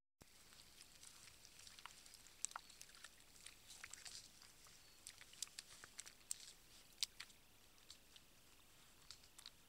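Faint, irregular wet clicks and small splashes from young wild boar piglets wading, rooting and drinking in a shallow muddy pool.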